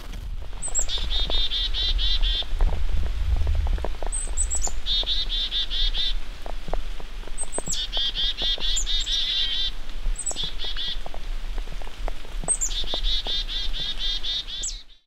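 A small songbird singing a short song over and over: each song is a brief high note followed by a rapid trill of repeated notes, coming every three to four seconds.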